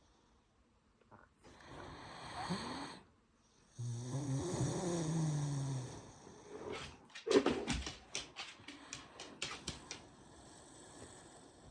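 Great Dane snoring while asleep: a breathy intake, then a long, low pitched snore. About seven seconds in comes a louder burst, followed by a run of quick clicks.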